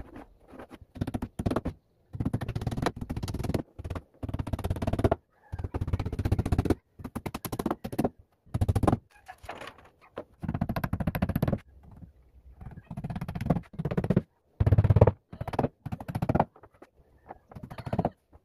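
Utility knife scraping and cutting wood in a long series of short rasping strokes, with abrupt silences between them.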